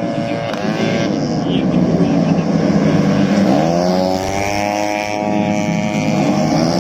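Racing motorcycle engines running hard. About halfway through, one climbs steeply in pitch as it accelerates, then holds a high steady note.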